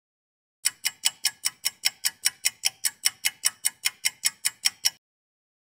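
Clock-like ticking, about five sharp ticks a second, starting about half a second in and stopping suddenly near the end.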